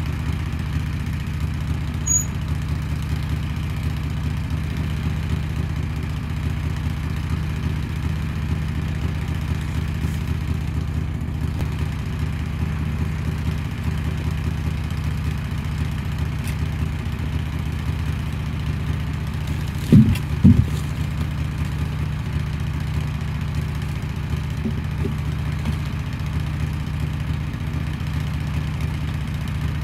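Wood-Mizer LT15 sawmill's engine running steadily at idle, saw head parked and not cutting. About two-thirds of the way through, two heavy thuds as a log is put onto the log deck.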